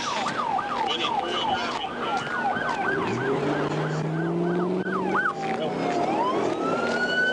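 Police car sirens. One cycles in a fast yelp, about three sweeps a second, then changes about five seconds in to a slow wail that falls and then rises again.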